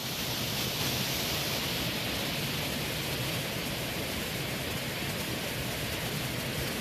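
Strong gale-force wind blowing, a steady even rush of noise picked up on a smartphone microphone.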